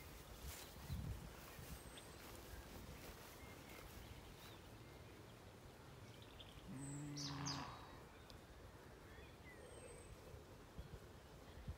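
Quiet field ambience with a few faint high bird chirps. About seven seconds in there is a single short, low, steady-pitched call.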